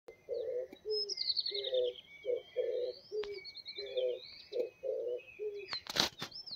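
A dove cooing over and over in low notes, paired long and short, while smaller birds chirp higher up with a fast falling trill about a second in. A few sharp clicks near the end.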